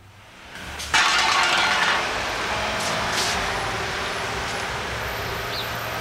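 City street traffic noise: a dense wash of vehicle sound fades in, jumps sharply louder about a second in with a hissy burst, then settles into a steady din.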